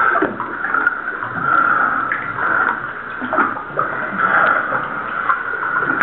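Cave water sloshing and gurgling irregularly as cavers swim through a flooded sump passage.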